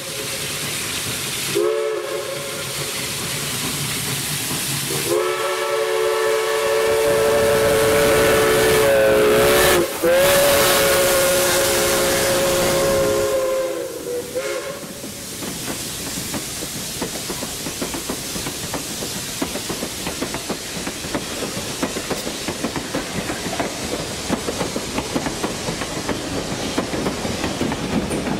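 CNJ 113, a 0-6-0 steam locomotive, sounds its chime whistle as it passes: a short blast, then a long one of about eight seconds that bends in pitch partway through. After that, the passenger cars roll by steadily, with the clickety-clack of wheels over rail joints.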